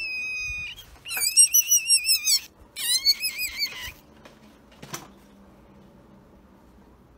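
Newborn kitten crying: a high, thin cry held briefly, then two longer wavering cries of about a second each, after which it falls quiet.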